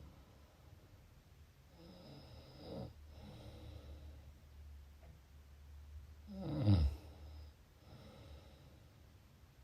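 Snoring: two snoring breaths, about two seconds in and about six seconds in, the second louder, each followed by a softer breath.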